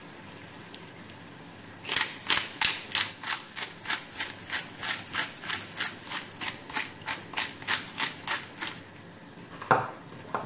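Hand pepper mill grinding black pepper: a run of quick, evenly repeated scraping turns, about three a second, lasting around seven seconds. Two sharp knocks follow near the end.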